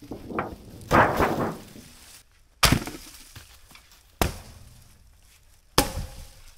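A clattering crash about a second in, then three sharp strikes about a second and a half apart, the last one ringing briefly.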